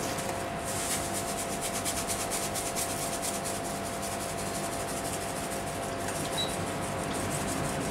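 Dry breadcrumbs shaken out of a cardboard box and pattering onto a tray of creamy pasta, a quick even run of tiny ticks and rustling.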